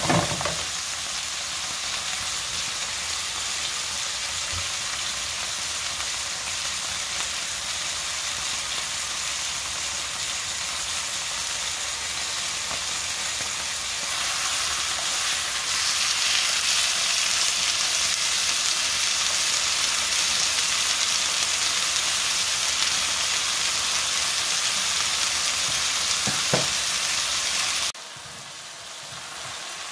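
Thin-cut beef steak sizzling in oil in a hot frying pan, a steady hiss. The sizzle grows louder about halfway through, then drops sharply to a quieter sizzle near the end.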